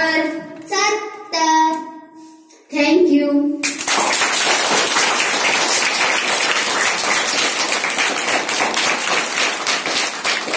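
A group of children singing a line in unison, ending about a third of the way in, then a roomful of children clapping their hands together for the rest.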